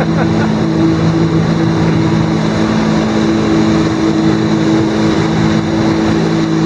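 Personal watercraft engine running steadily at high revs to pump water up a flyboard's hose, with the rush of the water jets spraying down onto the lake.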